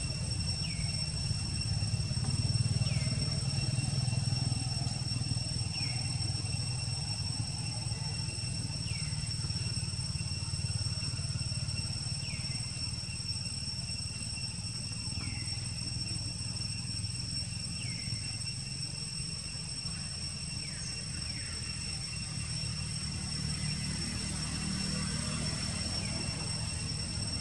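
Outdoor ambience: a steady low rumble under a constant high-pitched ringing, with a short falling chirp repeating every two to three seconds.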